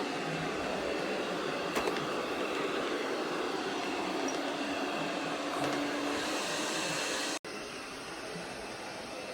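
MAMNV robot vacuum and mop combo running with a steady whirring noise. About seven seconds in, the sound cuts off abruptly and a quieter steady hum follows.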